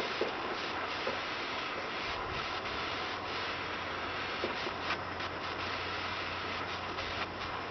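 Propane torch hissing steadily while a wooden paddle rubs and spreads softened lead-free body solder along a welded patch-panel seam, with a few light ticks.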